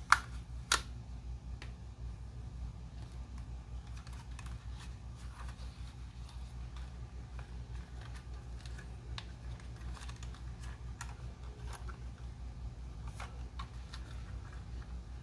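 Light clicks and taps of a DJI Mini 2 and its packaging being handled, with two sharper clicks right at the start, over a steady low hum.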